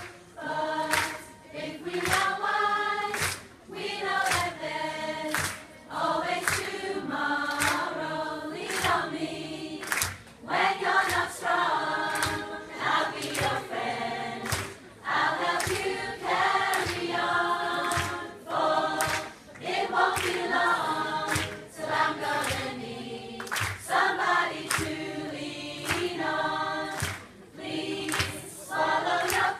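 A large group of mostly women singing together as a choir, in phrases with short breaks between them, over a steady beat of sharp hits.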